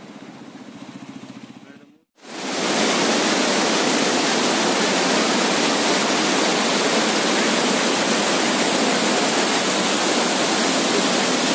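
Kempty Falls waterfall rushing loudly and steadily over rock. It cuts in about two seconds in, after a brief dropout, and before that there is only a fainter low hum.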